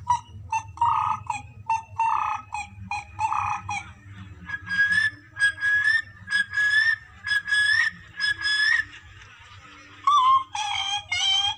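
A boy imitating animal and bird calls with his voice into a microphone: a string of short repeated calls, about two a second, that jump higher in pitch about four seconds in, then a new run of gliding calls near the end.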